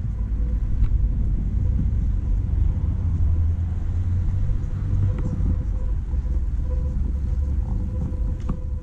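Low rumble of road traffic, with a faint steady whine over it.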